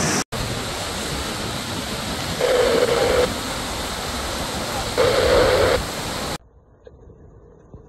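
Rushing water of a flooded, swollen river, a steady noise with two short pitched tones about two and a half seconds apart. The rush cuts off suddenly near the end, leaving only a faint background.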